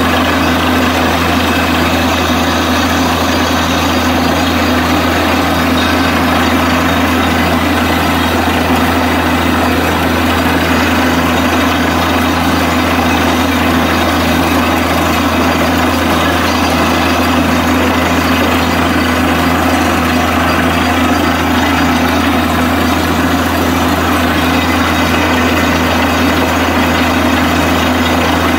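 Borewell drilling rig's heavy engine running steadily and loudly, with a regular low pulse under the drone.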